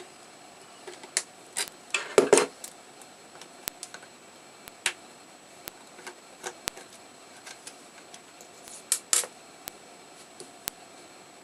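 Irregular small clicks, taps and scrapes of hands and tools working on a Nook Simple Touch e-reader's plastic casing and parts. There is a louder run of scraping and clatter about two seconds in and a couple of sharp clicks near nine seconds.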